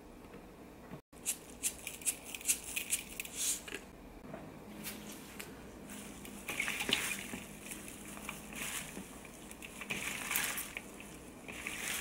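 A gloved hand mixing seasoned garlic chives and sliced onion in a glass bowl. The chives crackle and rustle, with wet squishing, starting about a second in.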